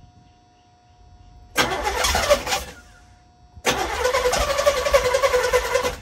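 Starter cranking the 1986 Monte Carlo SS's Chevy 305 small-block V8 in two tries, about a second and then about two seconds, each stopping abruptly without the engine catching: the crank-no-start condition.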